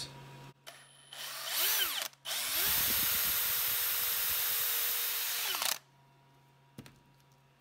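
Cordless drill briefly spun up and let down about a second in, then running steadily for about three seconds while drilling out the hole in a small 3D-printed plastic wheel, winding down near the end.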